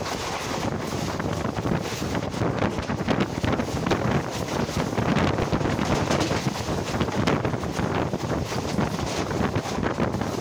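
Wind buffeting a microphone held out beside a fast-moving express train's coach, over the steady rush of the train running at speed with an irregular clatter of wheels on the track.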